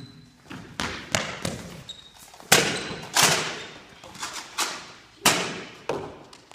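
Nerf Rival blasters firing foam balls during a match: about ten sharp thuds at an uneven pace, shots and balls smacking and bouncing off surfaces, each with a short ring after it.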